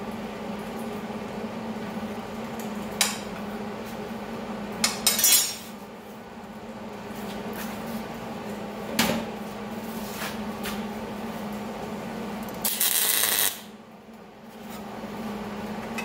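Steel flat bar and a metal square clinking and clattering as they are set down and moved on a steel welding table. There are a few sharp clinks and a longer scrape about three-quarters of the way through, over a steady low hum.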